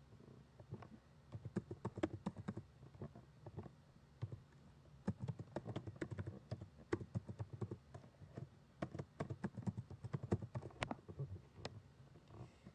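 Typing on a computer keyboard: irregular runs of key clicks with brief pauses between them, as a password and an e-mail address are entered.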